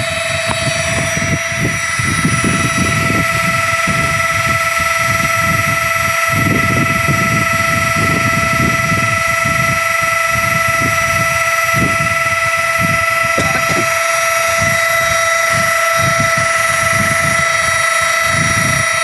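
Small electric air pump running with a steady, high-pitched motor whine, stopping suddenly at the end, which the owner takes to be on its way out. Irregular low buffeting from the wind sits underneath.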